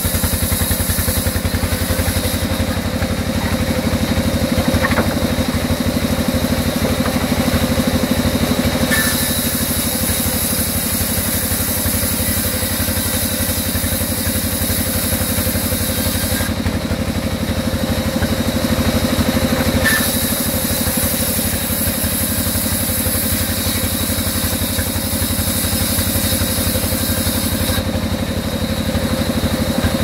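Sawmill band saw running with a steady low, pulsing drone, its blade cutting lengthwise through a long mango wood slab as it is pushed along the table. The level swells slightly a few times.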